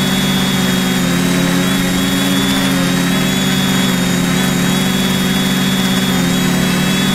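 A drone's electric motors and propellers running steadily, heard from its own onboard camera: a low hum with a thin high whine above it.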